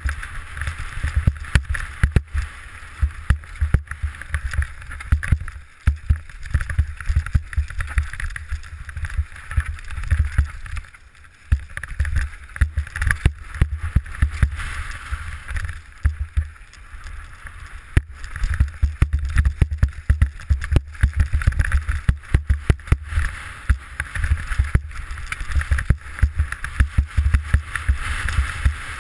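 Mountain bike descending a rocky dirt trail, heard from a helmet camera: wind buffeting the microphone with a low rumble, over a constant clatter of tyres and bike parts rattling across stones and gravel. The rattling eases briefly a few times.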